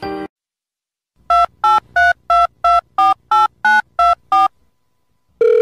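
Telephone keypad dialing tones: ten short two-note beeps at about three a second, as a number is keyed in. A steady single tone begins near the end.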